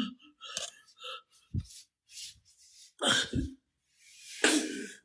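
A person's short, breathy huffs and throat noises, several in a row, with a low thump about one and a half seconds in.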